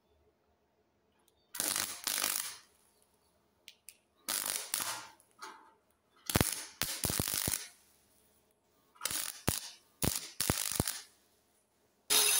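Parkside PFDS 120 A2 flux-cored wire welder arc crackling in about seven short bursts with silent gaps between them, tack-welding a small break in a sheet-steel trailer fender.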